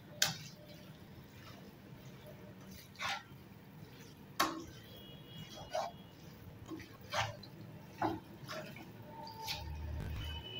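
A cooking utensil knocking against a black wok-style pan as noodles are tossed and mixed: sharp taps every second or so, over a low steady hum.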